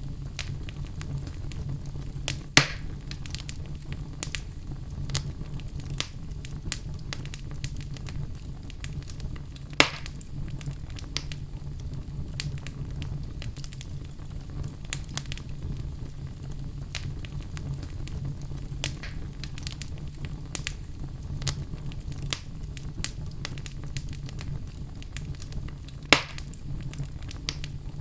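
Campfire burning with a steady low rumble and constant crackling, with three loud sharp pops from the burning wood, about two seconds in, near the middle and near the end.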